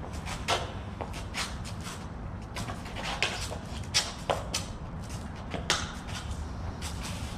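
Sparring blades, a practice bolo and barung, clacking against each other in irregular sharp knocks, about seven, with the loudest around 4 s, over a steady low rumble.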